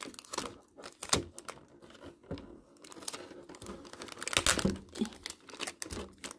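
Clear plastic blister tray crinkling and crackling as it is bent and handled, with sellotape being pulled off it. The crackles come irregularly and are loudest about four seconds in.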